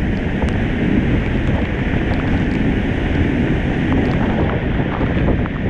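Sgwd yr Eira waterfall in heavy flood, heard from behind the falling curtain of water: a loud, steady rush of water pouring onto rock, with spray and air buffeting the microphone.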